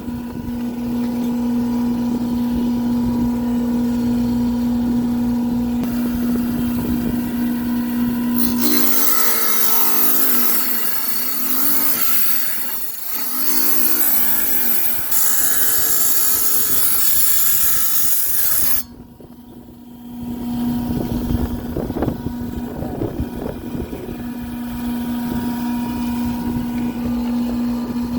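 Tile saw running with a steady motor hum. For about ten seconds the blade grinds through an agate, a loud, high, hissing grind while the motor's pitch wavers under the load. Near two-thirds of the way through the sound drops away briefly, then the steady hum returns.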